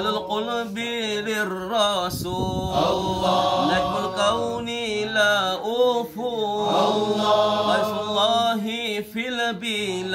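Men chanting an Arabic devotional recitation, a long wavering melodic line drawn out on the closing "Allah" of a verse, with a steady low note held underneath.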